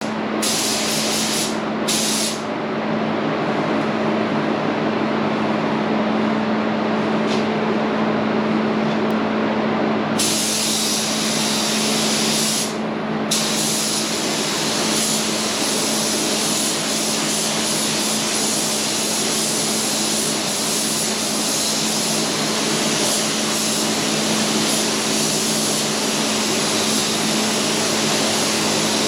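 Air-fed paint spray gun hissing steadily as a coat is sprayed, with a steady hum underneath. The hiss briefly thins twice as the trigger is let off.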